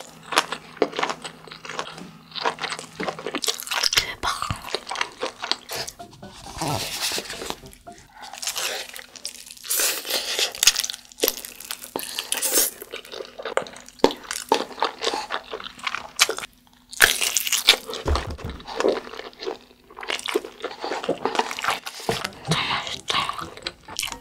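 Close-miked eating: crunchy bites and chewing of a kielbasa sausage, then loud slurps of spicy instant noodles, in short irregular bursts.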